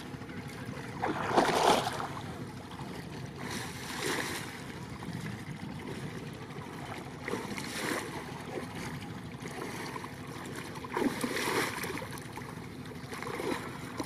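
Water splashing and swishing as a person wades through waist-deep river water, with louder surges about a second and a half in and again near eleven seconds, over a steady rushing hiss.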